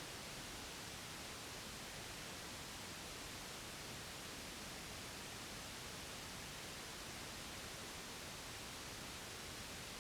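Steady white noise: an even, unchanging hiss with no rhythm, tones or breaks.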